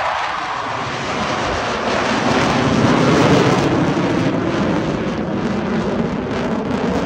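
Jet engine noise from two F/A-18 fighter jets flying over in formation: a loud, steady rushing sound that swells slightly about three seconds in.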